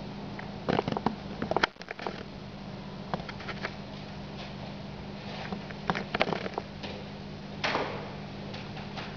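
Scattered clicks and knocks in several short clusters over a steady low hum.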